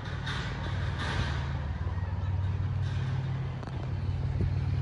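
Truck engine running with a steady low drone, with a short hiss about a second in.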